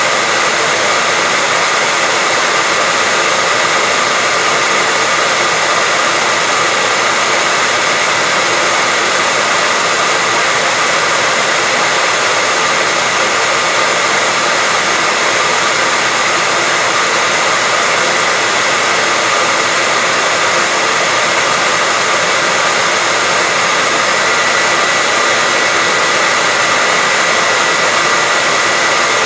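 Electric hair dryer running steadily: an even blowing hiss with a faint high hum, used as continuous white noise to lull a baby to sleep.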